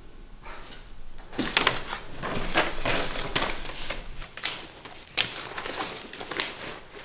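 A sheet of paper rustling and crinkling as it is handled, in a run of short crackly strokes, then a single sharp click about five seconds in.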